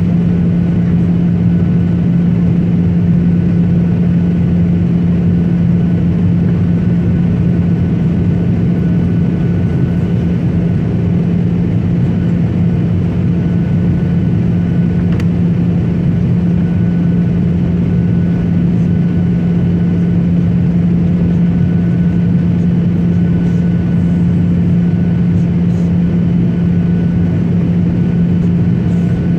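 Steady engine drone of an airliner heard inside the passenger cabin in flight. A constant low hum is joined by a thin, steady high whine, with no change in pitch or level.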